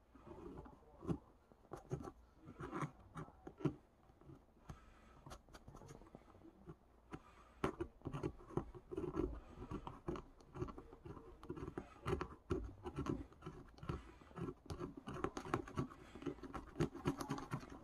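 Irregular scratching and scraping with many small clicks and knocks, from hand work on the bass.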